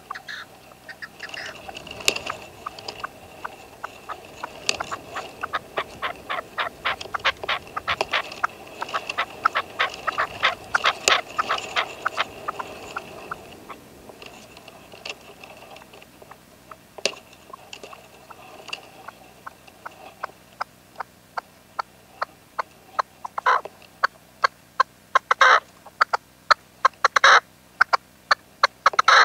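Caged decoy red-legged partridge calling: long runs of rapid, harsh chuckling notes, several a second, then fewer but louder, sharper calls near the end.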